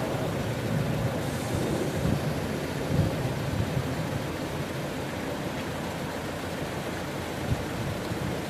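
Wind buffeting the microphone: a steady low rumble with gusty thumps, the strongest about three seconds in and a brief one near the end.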